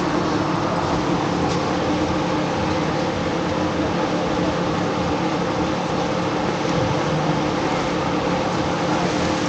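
A steady machine-like hum, with constant tones held under an even rushing noise.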